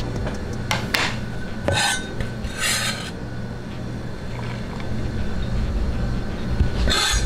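Metal spatula scraping a wok while stir-frying rice: a few short scrapes about one, two and three seconds in and again near the end, over a steady low rumble.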